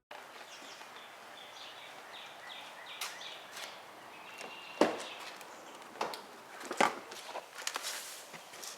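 Outdoor background noise with short bird-like chirps over the first few seconds and several sharp knocks scattered through the rest.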